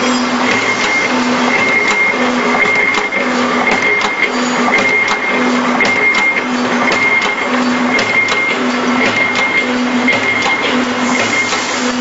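Wire buckle making machine for cord strapping running, working in an even repeating cycle about once a second: a low hum and a higher whine taking turns, with sharp clicks throughout.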